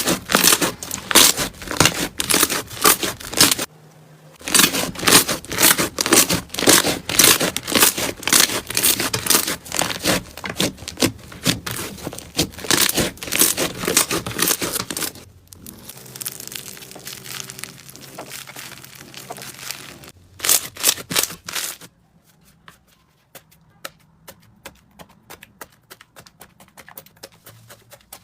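Slime being squeezed and pressed, giving dense crackling and popping, with a brief pause about four seconds in. From about fifteen seconds it goes quieter, with one more crackly burst around twenty seconds, then only faint, sparse pops.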